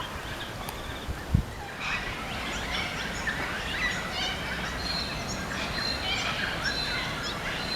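Birds chirping and calling, many short high chirps overlapping into a busy chorus from about two seconds in. A single soft thump comes just before the chirping starts.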